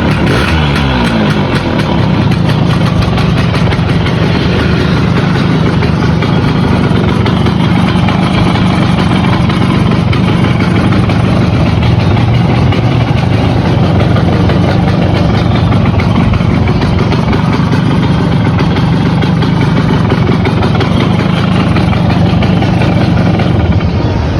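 Simson S51's 50 cc single-cylinder two-stroke engine, fitted with a VAPE electronic ignition, running steadily at idle. Its revs fall away in the first second or two, then hold even.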